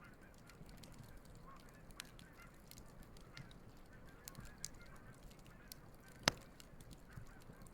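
Geese honking faintly over a crackling wood campfire. The fire gives sharp pops, with one much louder pop about six seconds in.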